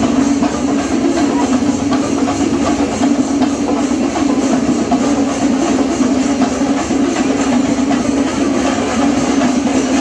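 Loud, dense festival drumming and music, unbroken, over a steady droning note.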